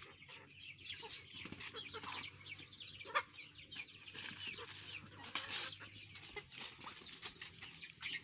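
Chickens clucking, with many short high chirps throughout and one sharp knock about three seconds in.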